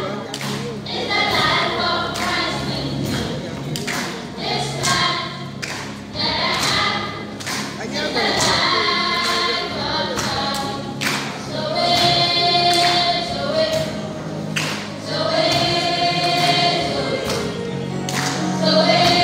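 Children's choir singing a gospel song, with a lead voice on a microphone and regular thumps keeping the beat.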